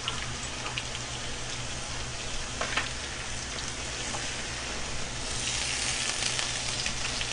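Pork belly, kimchi and grilling cheese sizzling on a hot griddle: a steady frying hiss that grows stronger about five seconds in, with a couple of faint clicks of chopsticks on the plate.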